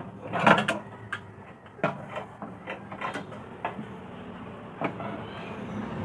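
Irregular clicks and knocks of metal as a microwave oven's magnetron is worked loose by hand and pulled from its sheet-metal mount. The loudest cluster comes about half a second in, with single sharper knocks a few more times after.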